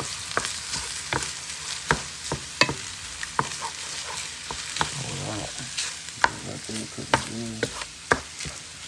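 Ground wild boar and eggs sizzling in a hot frying pan while being stirred, with frequent sharp clicks and scrapes of the stirring utensil against the pan.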